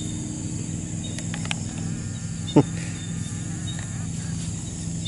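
Insects chirring steadily in a high continuous drone over a steady low hum, with a single short sharp knock about halfway through that stands out as the loudest sound.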